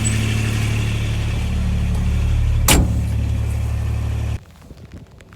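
Vehicle engine running steadily with a low drone, with one sharp knock partway through; the engine sound cuts off abruptly near the end.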